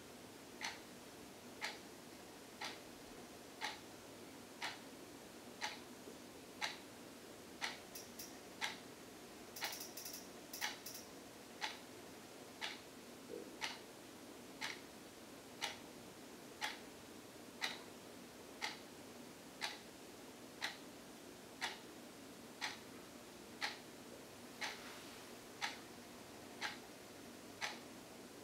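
Winnie the Pooh wall clock ticking, a sharp click once a second as its second hand steps around the dial.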